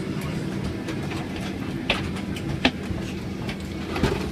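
Boeing 767-400's jet engines at taxi idle, heard as a steady low rumble inside the cabin while the airliner taxis slowly to the gate. Three short sharp clicks stand out over it, about two, two and a half and four seconds in.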